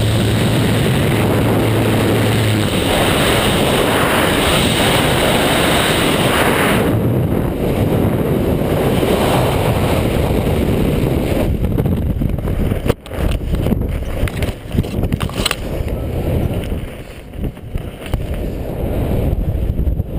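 Heavy steady wind rush on a helmet camera's microphone in skydiving freefall, with the low hum of the jump plane's engine in the first couple of seconds. About twelve seconds in it breaks into flapping snaps as the parachute deploys, then settles into quieter, gusty wind under the canopy.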